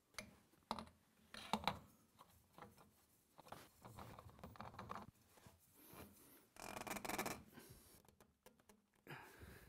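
Faint handling noises as spin-on fuel filters are screwed by hand onto a FASS fuel system's filter head. A few sharp clicks come in the first two seconds, followed by scraping and rubbing, with a longer scratchy rub about seven seconds in.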